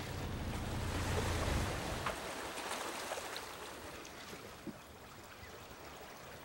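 A sailboat's motor running with a low steady hum, then dying away about two seconds in, leaving the wash of water and a little wind.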